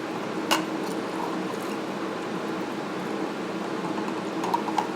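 Steady background hum, like a fan or air conditioner running, with one short click about half a second in.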